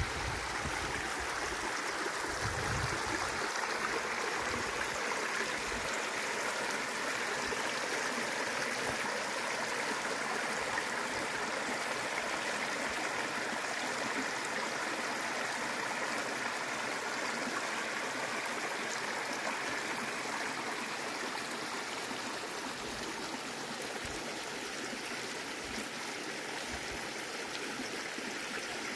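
Small mountain brook running over rocks: a steady trickling and gurgling rush of water, growing slightly fainter in the last several seconds.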